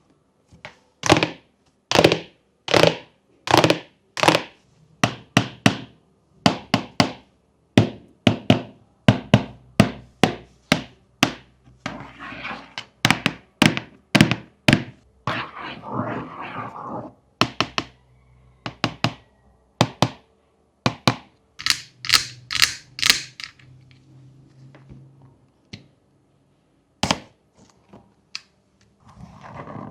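Fidget board toys being worked by hand: a long run of sharp clicks and thunks, about one to three a second, with a stretch of rustling or scraping in the middle.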